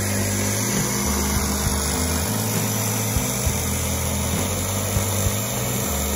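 Corded jigsaw cutting through a solid-surface shower panel, a steady high buzz of the blade, with background music carrying a stepping bass line underneath.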